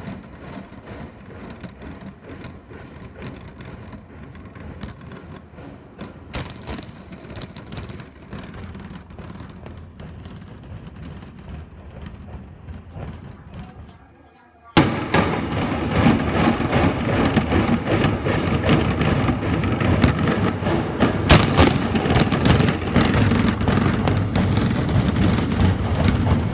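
Demolition implosion of an 11-story hospital tower: after a stretch of quieter background noise, the sound jumps to a loud, continuous rumble about halfway in. A sharp crack of the charges comes a few seconds later, and the heavy rumble of the collapsing building runs on after it.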